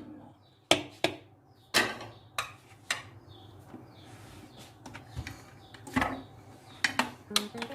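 Kitchen utensils knocking against dishes as spices are added to a mixture: a string of sharp, irregular taps and clinks, a cluster in the first three seconds and another near the end.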